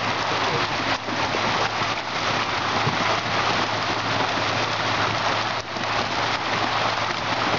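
Dense, steady splashing and pattering of a mass of freshly harvested milkfish thrashing in the net and on the boat's deck, like heavy rain, over a steady low hum.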